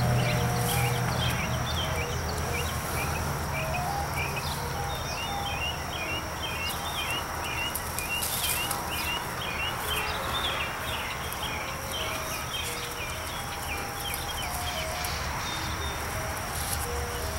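Summer outdoor ambience: a steady high-pitched insect drone and a constant run of short high chirps, over a soft rustling hiss as the yellow Labrador retriever noses through the blackberry brambles.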